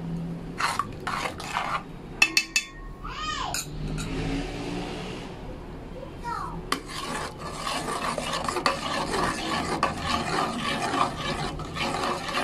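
A metal spoon knocks against an aluminium pot a few times, sharpest about two seconds in, as a spoonful of shrimp paste is tapped off into the sauce. From about seven seconds in, a spatula stirs and scrapes thick peanut kare-kare sauce in the pot steadily.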